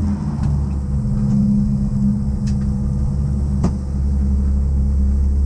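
Volkswagen Golf 3 rally car's engine heard from inside the stripped cabin, running steadily at low revs as the car rolls slowly. Two sharp clicks come about two and a half and three and a half seconds in.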